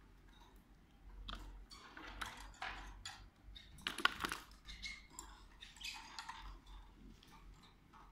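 Canaries moving about a wire cage and working at a fibre-lined nest: scattered light clicks, taps and rustles, with a louder burst about four seconds in.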